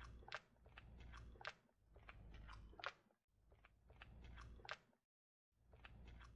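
Silicone spatula folding a thick whipped-cream mixture in a stainless steel bowl: soft, squishy strokes about once a second, several ending in a sharp wet click. The sound drops out completely for a moment about five seconds in.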